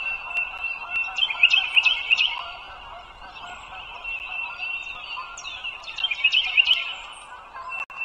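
Eagles calling at the nest: high, thin chittering and peeping, louder in bursts about a second and a half in and again near the end, with scattered light clicks.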